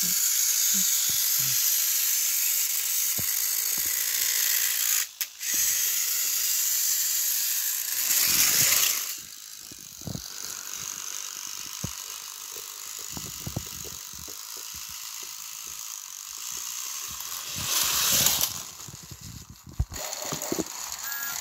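Battery-powered Thomas & Friends TrackMaster toy engines whirring along plastic track, a steady high whirr with small clicks and knocks of the wheels on the track joints. The whirr drops away about nine seconds in, and louder rustling handling noises come just before that and again near the end.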